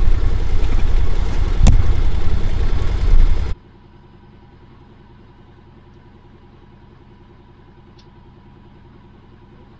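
Can-Am Defender side-by-side running over a rough field, a loud low rumble with one sharp knock about two seconds in. The sound cuts off suddenly after about three and a half seconds, leaving only a faint steady hum.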